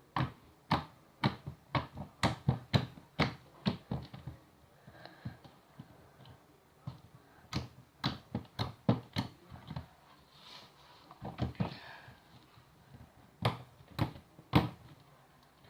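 Homemade slime being squeezed and kneaded by hand, giving off a series of sharp clicking pops as air pockets burst. The pops come quickly for the first few seconds, then more sparsely with quieter pauses and a few last pops near the end.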